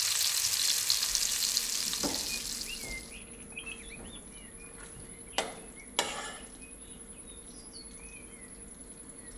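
Chicken breasts sizzling in butter and oil in a stainless steel frying pan, the sizzle stopping abruptly about three seconds in. After that a quieter stretch with birds chirping in the background and two sharp clinks about five and six seconds in.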